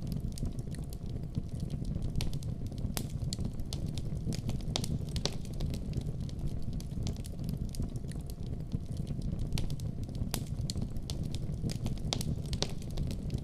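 Campfire burning, with wood crackling and popping in sharp, irregular snaps over a steady low rumble.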